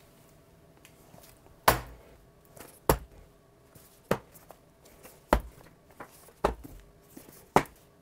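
Cardboard iPhone boxes set down one after another on a kitchen counter: six short, sharp knocks at an even pace of about one a second.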